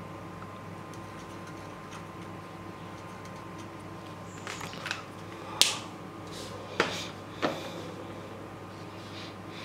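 Steady low hum, then from about halfway several sharp clicks and knocks within about three seconds, the loudest a little past halfway, from a felt-tip marker and the drawing paper being handled.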